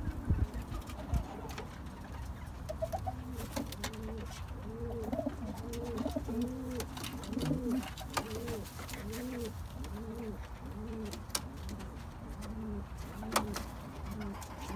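Domestic pigeon cooing: a run of low coos, each rising and falling, about two or three a second, starting about four seconds in and going on to the end, with a few sharp clicks among them.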